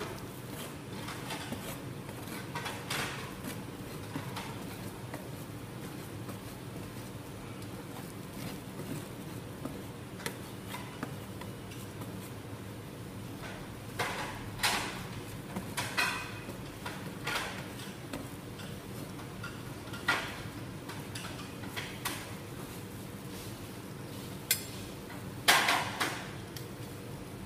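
Metal spatulas scraping and spreading chocolate sauce over ice cream base on a steel cold plate, with sharp metal clacks several times in the second half, the loudest near the end, over a steady low hum.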